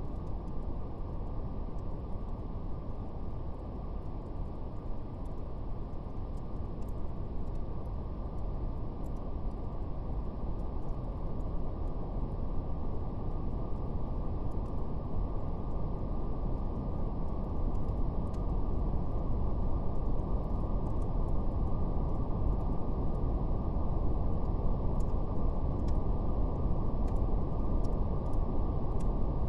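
Steady brown noise, a deep even rumble, with faint scattered crackles of a fire, swelling slightly louder over the last third.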